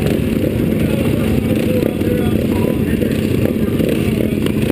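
Flat-track race motorcycle engines idling together, a steady low rumble.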